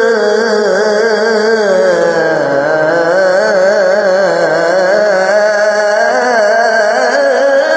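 A man singing an Islamic sholawat in one long, drawn-out melismatic line with a constant wavering vibrato. The pitch sinks low about two and a half seconds in, then climbs back up.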